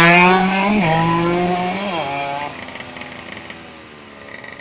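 Yamaha F1ZR's two-stroke engine running at high revs with a steady buzzing note, dipping in pitch about a second in and again near two seconds, then dying down to a much quieter level by halfway through.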